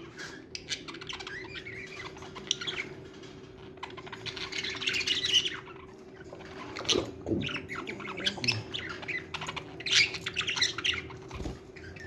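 Flock of budgerigars chattering, with many short squawks and chirps overlapping.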